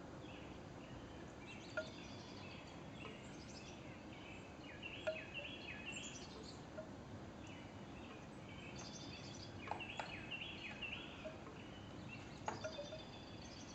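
Faint outdoor birdsong: scattered short chirps from small birds, with a few isolated soft knocks over a low steady hiss.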